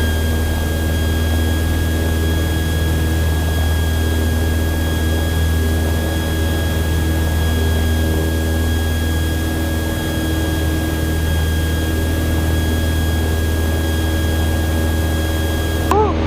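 Cessna 172's piston engine and propeller droning steadily inside the cabin in level flight, with a steady high-pitched whine over it.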